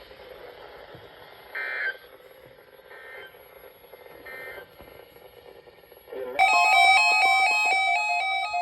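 Three faint, short data bursts about a second and a half apart, the end-of-message tones that close an Emergency Alert System broadcast. About six seconds in, a loud electronic tone sequence starts: several steady tones changing pitch in steps over a held lower tone.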